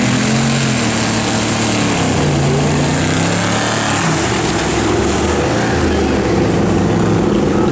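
Pickup truck engine under hard throttle, its pitch rising and falling repeatedly as it revs, over a steady loud rush of noise.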